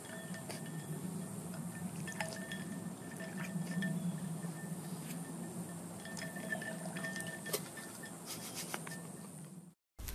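Corgi puppy lapping at water in a glass bowl of ice cubes, with wet slurping and splashing and the ice clinking against the glass in many short sharp clicks. The sound cuts off suddenly just before the end.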